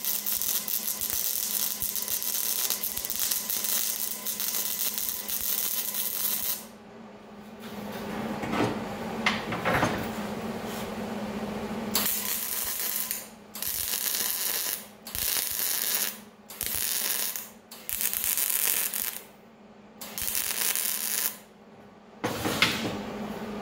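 Wire-feed welder arc crackling and sizzling as steel pipe is welded onto a steel grate frame: one continuous bead for about seven seconds, then, after a pause, about six short bursts of welding one after another. A sharp knock comes near the end.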